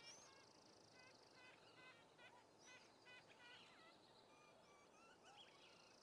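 Faint bird chirping: many short, quick chirps throughout, with a high steady insect-like buzz that fades out about a second in.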